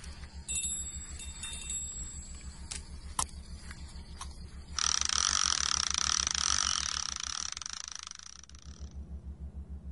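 Sound effects for a tabletop disc mechanism. Faint high ringing and a few small clicks come first. About five seconds in, a loud hissing whir starts suddenly, fades over the next few seconds and stops near the end, all over a steady low pulsing hum.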